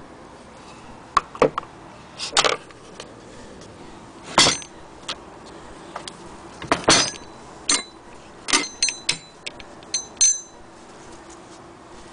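Irregular sharp metallic clicks and clinks from the parts of a hand-crank Singer 99K sewing machine being handled, about a dozen in all, some with a brief ringing tail.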